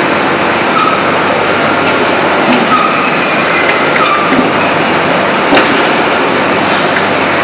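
An open-die forging press works a red-hot ring forging: a loud, steady mechanical roar with a few brief faint squeals, and two sharp metallic clicks near the end.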